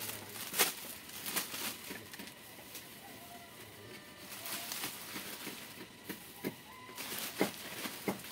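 Clear plastic bag crinkling and rustling in irregular bursts as it is opened and dry straw is stuffed into it by hand. Faint bird calls in the background.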